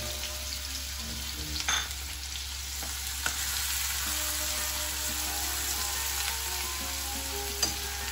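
Chopped onion sizzling steadily in hot oil with whole spices in a stainless steel kadai, stirred with a steel spoon that clinks against the pan a few times.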